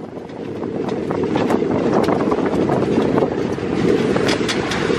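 Open side-by-side UTV driving along a rough, muddy dirt trail: a steady rumble of engine, tyres and wind that builds over the first second, with frequent sharp clicks and rattles.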